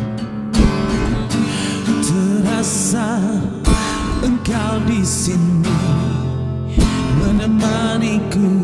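Acoustic guitar strummed steadily, with a voice singing a slow melody over it, holding notes with a wavering vibrato.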